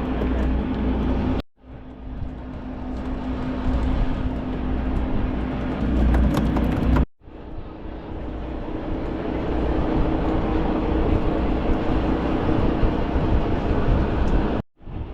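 A fishing charter boat's engine runs steadily, giving a low rumble with a constant hum. The sound cuts out abruptly three times: about a second and a half in, about seven seconds in, and near the end.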